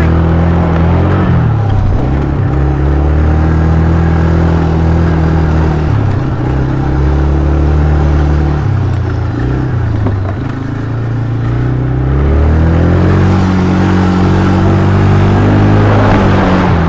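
Engine of a vehicle being driven hard, revving up and down with its pitch falling and rising several times, easing off briefly about ten seconds in before climbing again.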